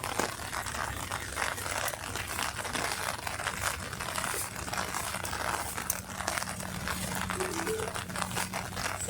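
Steady rain falling, a dense crackle of many close drops.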